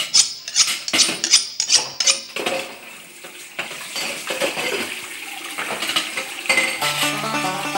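Clattering of dishes, pots and cutlery: a quick run of sharp crashes and clinks for the first couple of seconds, then looser jangling. About seven seconds in, a plucked-string country tune begins.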